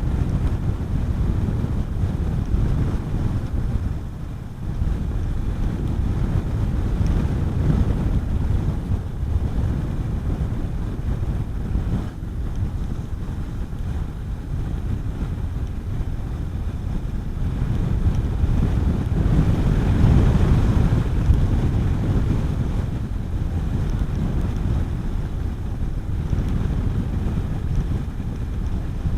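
Wind rushing over the microphone of a motorcycle on the move, with the Honda CB400SS's single-cylinder engine running steadily underneath. The noise dips briefly early on and swells about two-thirds of the way through.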